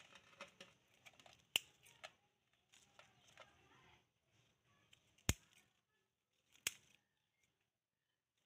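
Scissors snipping through thin lemon tree twigs during pruning: several sharp snips, the three loudest about a second and a half, five, and six and a half seconds in.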